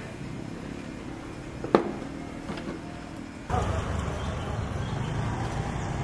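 Outdoor building-site ambience over a steady low traffic rumble, with one sharp knock that rings briefly a little under two seconds in. About halfway through, the background rumble gets suddenly louder.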